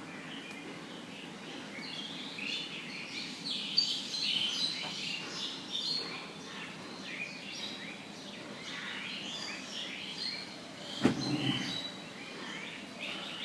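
Morning birdsong: many small birds chirping at once, short quick high chirps overlapping over a low background hiss. One sudden knock sounds near the end.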